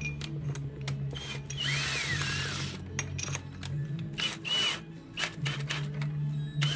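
Cordless drill boring out a plastic pipe fitting to widen its inner diameter, the motor running in short runs with the bit scraping and clicking against the plastic. About two seconds in there is a louder stretch with a rising-and-falling whine.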